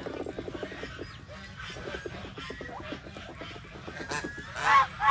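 Chinese geese calling: quieter, rapid chatter from the flock, then two loud honks close together near the end.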